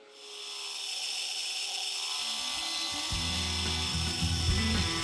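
Benchtop mini mill's end mill cutting a slot in an aluminum clamp, a steady high hiss of cutting. Background music with a bass line comes in about two seconds in.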